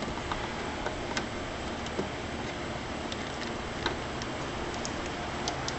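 Light, irregular clicks of hand tools and metal parts as bolts and fittings are worked loose on top of a Chevy 4.3 L Vortec V6, over a steady background hiss.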